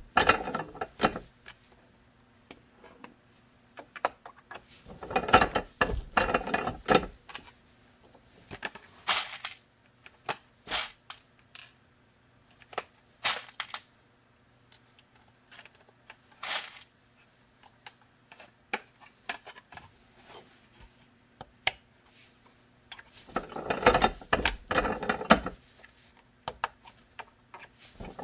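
Hand-lever press setting rivets through a Kydex holster shell: clusters of clicks and metal clatter at the start, about five seconds in and again near the end, with scattered single clicks between.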